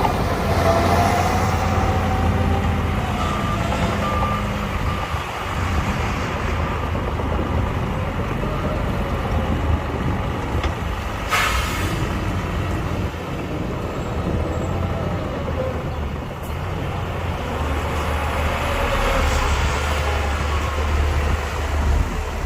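Heavy diesel dump truck and earthmoving machinery running with a steady low engine drone, with a few reversing beeps about three to four seconds in and a short air-brake hiss about eleven seconds in.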